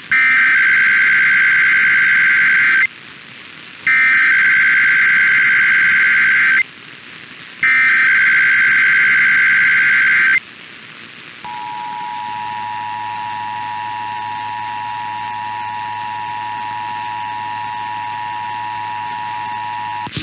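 Emergency Alert System signal for a Required Monthly Test. First come three shrill bursts of SAME header data tones, each about three seconds long with a second's pause between them. About eleven seconds in, the steady two-tone EAS attention signal starts and holds.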